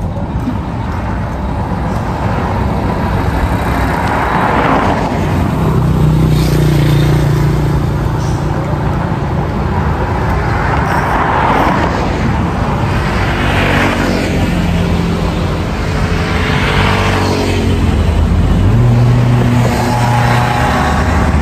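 Road traffic: motor vehicle engines passing one after another over a steady low rumble, swelling and fading every few seconds.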